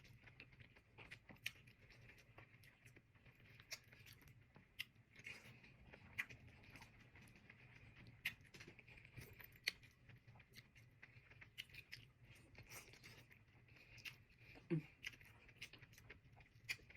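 Quiet close-up chewing of raw vegetables such as cucumber and bell pepper: scattered small crunches and wet mouth clicks at irregular intervals, with a short hummed "mm" near the end.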